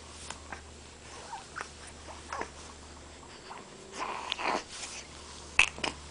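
Three-week-old baby's small grunts, squeaks and snuffles, with a louder grunt about four seconds in and one short, sharp sound about five and a half seconds in.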